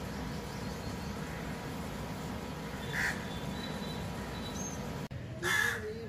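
A crow cawing twice over a steady low background hum: a short call about halfway through and a louder, longer one near the end.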